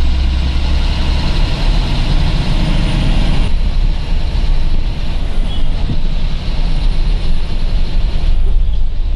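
Bus engine and road noise heard from inside the cabin of a moving bus: a steady rumble that changes abruptly about three and a half seconds in.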